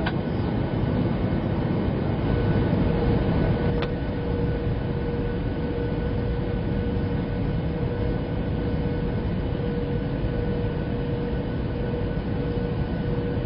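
Cabin noise of a Boeing 737 MAX 8 on final approach: a steady rumble of its CFM LEAP-1B engines and airflow, with a steady mid-pitched whine that sets in a few seconds in. A short click comes about four seconds in.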